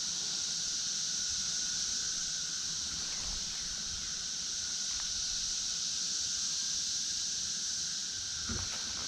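Periodical cicadas chorusing in large numbers: a steady, high-pitched drone with a thinner, lower steady whine running beneath it.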